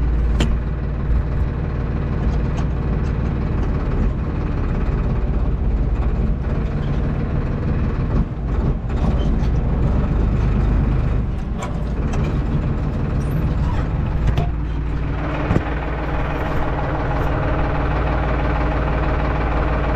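Valmet 700 tractor engine running steadily, with a few knocks and rattles; it gets louder about fifteen seconds in.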